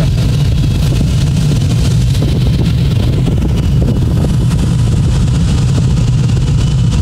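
Steady loud rush of air in the cockpit of an ASK 21 glider under tow, with a constant low drone beneath it.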